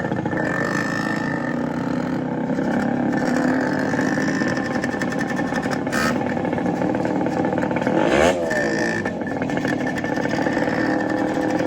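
Modified Yamaha RX100's two-stroke single-cylinder engine running, with a short swoop in pitch and a peak in loudness about eight seconds in.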